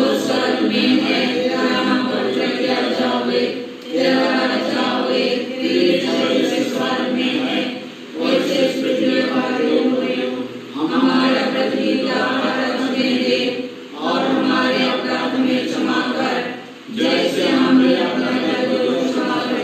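Voices singing a devotional chant unaccompanied, in phrases of about three to four seconds with short breaths between them.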